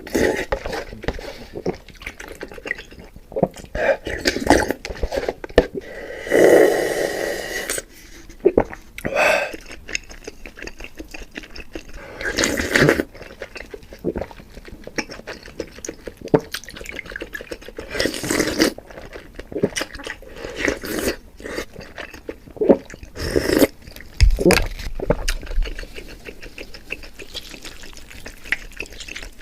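Close-miked eating of noodles in sour soup: wet slurps and chewing in irregular bursts, with one longer slurp about six seconds in.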